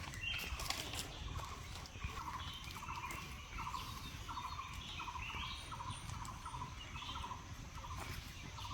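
Forest birds calling: one bird repeats a short note about twice a second without a break, while other chirps come in higher above it.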